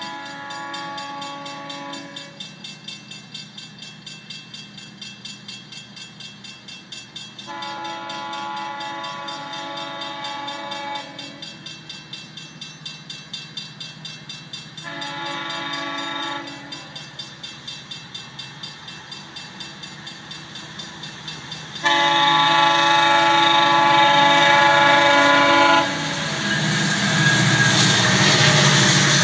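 GO Transit diesel locomotive sounding its chord horn in the grade-crossing pattern: long, long, short, long, with the last blast the loudest as it draws near. Between the blasts a crossing bell dings about two to three times a second. Near the end the locomotive passes close by with a loud rush of engine and wheel noise.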